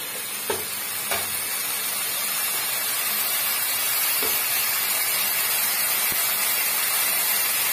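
Tomato and spice paste sizzling in hot oil in a pan as it is sautéed, a steady hiss that grows slightly louder, with a few light clicks of a metal spatula against the pan, two in the first second or so and one about four seconds in.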